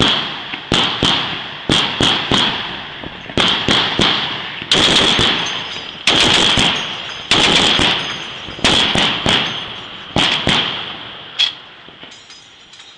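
A shipboard gun firing single shots and short bursts, each shot with a long echoing tail. Near the end the firing stops.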